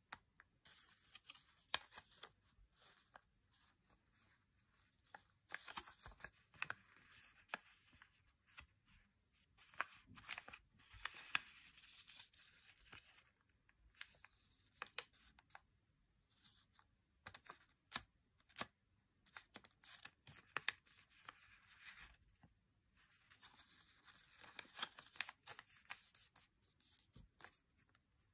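A small square of origami paper being folded and creased by hand: faint crisp rustling and crackling of the paper, with many little snaps and clicks as folds are pressed and opened out.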